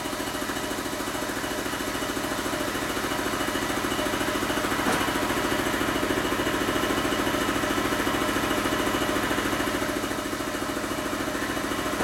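Harley-Davidson 80 cubic inch Evolution V-twin idling steadily, with one sharp click about five seconds in.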